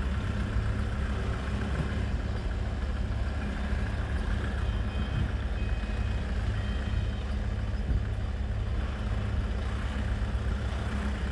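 Diesel engine of a small dump truck carrying about three cubic metres of sand, running steadily under load as it drives slowly along a muddy track; an even drone with no revving.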